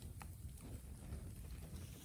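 Bonfire of green bamboo smouldering, with one faint pop about a fifth of a second in, over a low rumble of wind on the microphone.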